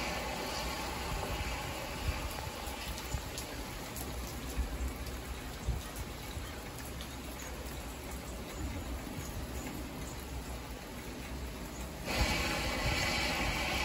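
Rain pattering on a car windshield over the steady hiss of tyres on a wet freeway, heard from inside the car, with scattered sharp taps of drops. The hiss grows louder about twelve seconds in.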